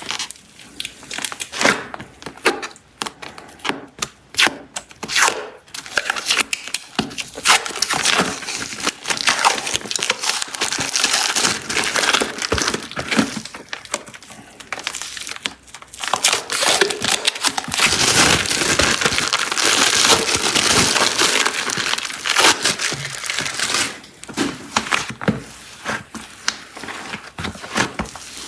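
Plastic clay packaging being crinkled, torn open and handled, a dense run of crackles and sharp clicks that grows busiest past the middle.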